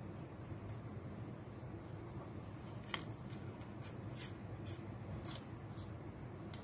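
A small bird chirps a quick run of about six high notes that fall slightly in pitch, over a steady low background hum. A few faint clicks follow.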